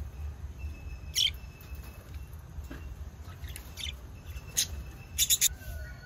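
Budgerigars chirping: a few short, sharp calls, with a quick run of three near the end, over a low steady rumble.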